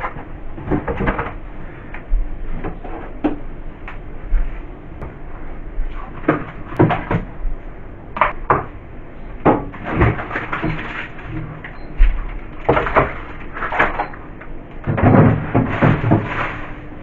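Food containers, jars and bottles being taken out of a fridge and set down, one after another: a run of irregular knocks and clatters.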